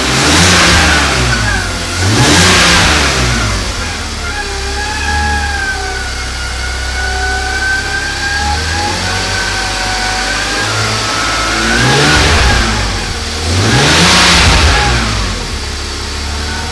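BMW Z4 (E85) engine idling in neutral and blipped up and down four times, twice near the start and twice near the end, with a thin wavering high whine over the idle in between. It is the odd noise the car made after startup once it had sat unstarted for a few weeks.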